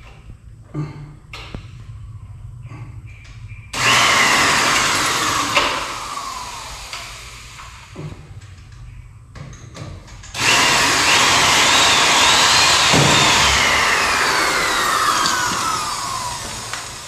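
Electric drill run twice while working at the door frame: a burst starting about four seconds in, then a longer one about ten seconds in, the motor's whine falling in pitch each time as it slows. A few light knocks in the quieter gaps.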